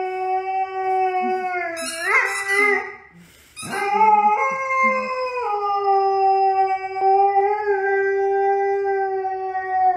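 Dog howling in long, steady notes, with a short break about three seconds in. Its pitch steps up briefly a second later, then settles back and falls away at the end.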